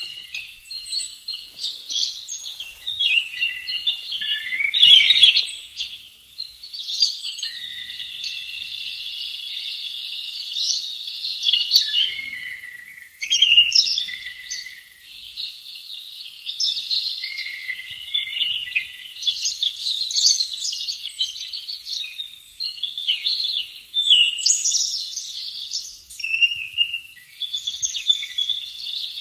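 Wild birds singing and calling over one another in a continuous chorus of high chirps and trills, loudest about five seconds in.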